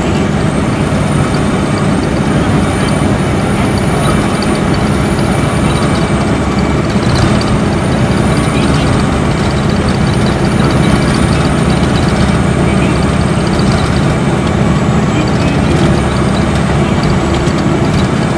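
Interior running sound of a Nissan Diesel Space Arrow RA coach cruising at expressway speed: its inline-six turbo diesel and torque-converter automatic give a steady low drone under road noise. Above it a thin high whine wavers slowly up and down, typical of the turbocharger that is prominent on this bus.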